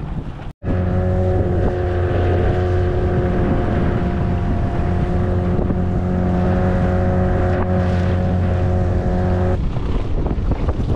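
Small boat's motor running at a steady pitch over wind and water noise, stopping sharply about nine and a half seconds in.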